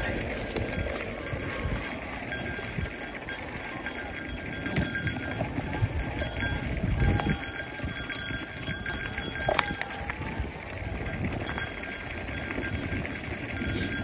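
Mountain bike ridden over a dirt singletrack: knobby tyres rolling on dirt, and the bike rattling and knocking irregularly over the bumps.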